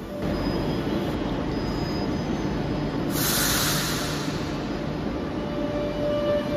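Metro Bilbao electric train at an underground platform, a steady rumble with a sharp burst of compressed-air hiss about three seconds in that lasts about a second.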